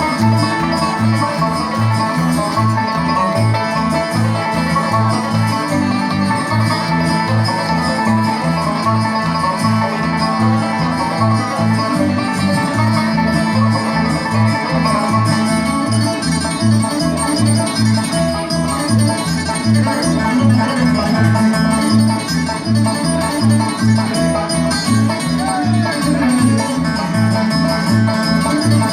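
Upbeat bluegrass instrumental music, banjo and guitar picking over a steady bass beat.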